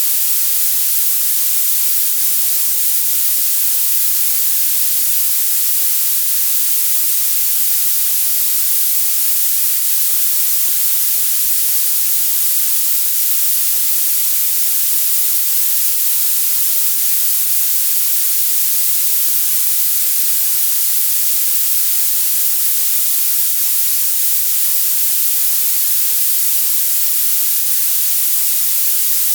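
Violet noise: a steady, bright, high hiss whose energy rises toward the highest frequencies, with almost no low end.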